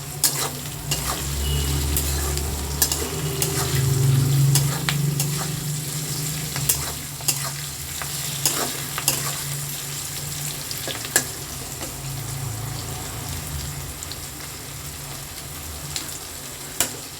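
Vegetables with capsicum sizzling in a kadai while being stirred, with a steady hiss and a spatula clicking and scraping against the pan at irregular moments. A low hum runs underneath, strongest in the first few seconds.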